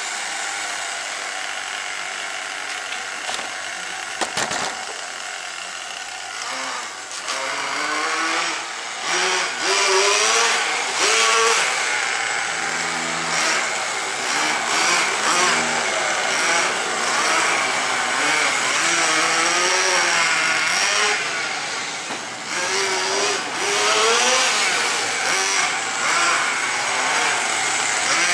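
Two-stroke nitro glow engine of a Tamiya TGX 1/8-scale radio-controlled car running, its pitch rising and falling over and over as the car speeds up and slows down. There is a short sharp click about four seconds in.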